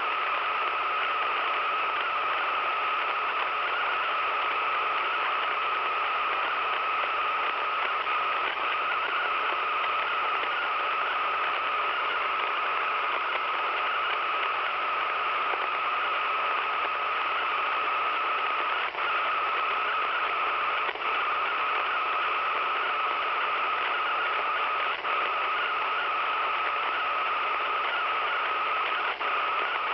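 Radio receiver putting out a steady hiss of static with a constant tone-like band running through it, the odd interference sound picked up on the dial. A few brief dropouts break it in the second half.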